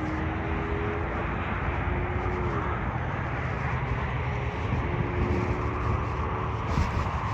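Steady low outdoor rumble with the faint drone of a distant motor vehicle, whose tone holds, drops away about two and a half seconds in, and comes back briefly around five seconds in.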